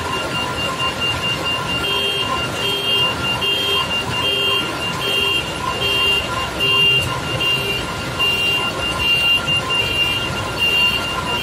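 Electronic warning beeper on heavy machinery, starting about two seconds in and beeping steadily about once every 0.8 seconds over a steady running engine.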